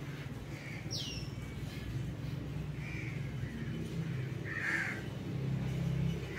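A crow cawing three times, a couple of seconds apart, the third call the loudest. There is a brief high falling whistle about a second in, and a low steady hum throughout.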